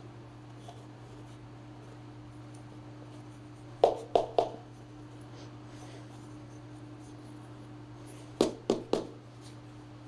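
10-inch scooter tire and wheel being wiggled and handled to seat the inner tube, with two quick runs of three knocks, about four seconds in and again near the end, over a steady low hum.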